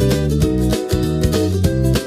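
Background music: upbeat plucked-string tune, guitar or ukulele, with a steady rhythm.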